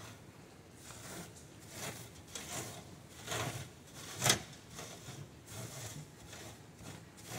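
Gloved hands rubbing dry Siberian motherwort seed heads across a wire-mesh seed screen in a wooden frame, threshing the seeds out of the pods: a scratchy rustle repeated in uneven strokes about every half second, with one louder scrape a little past the middle.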